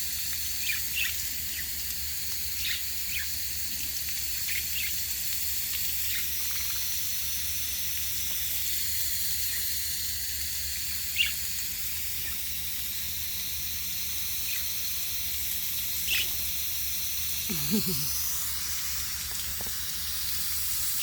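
Fine water spray hissing steadily as budgies are showered, with short budgie chirps here and there over it. The spray cuts off suddenly at the very end.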